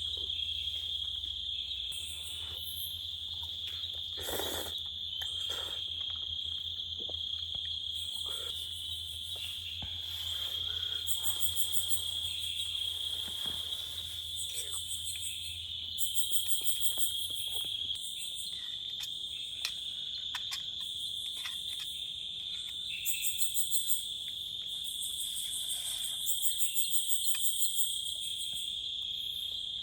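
Insects calling, cricket-like: a steady high trill throughout, with bouts of fast pulsing higher-pitched chirps that come and go, and a few soft knocks. A low hum underneath stops a little past halfway through.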